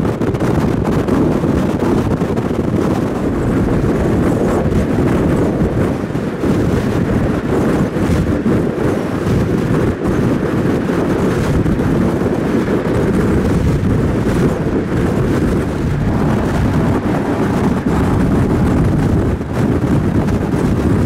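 Steady wind buffeting the microphone over the rumble of a vehicle driving at speed.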